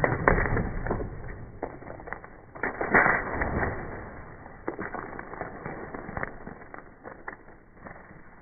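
Irregular creaks, rubbing and clicks, loudest near the start and again about three seconds in, then fading.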